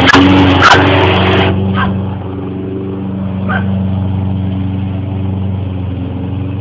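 Petrol lawn mower engine running steadily, with louder noise and a couple of sharp knocks in the first second and a half before it settles to an even hum.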